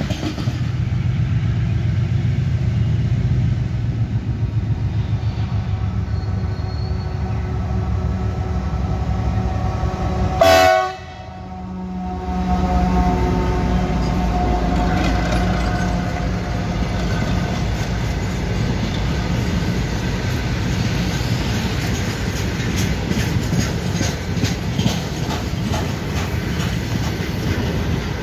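A freight train of covered wagons rolling past with a steady rumble and rhythmic wheel clatter over rail joints. About ten seconds in comes a brief loud horn blast, then a GE diesel freight locomotive passes at speed, its engine drone steady, and its wagons clatter by behind it.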